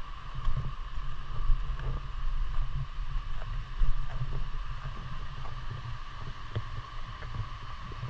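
Wind rumble and handling noise on a camera carried along a trail, with scattered light footsteps and a steady high background hum.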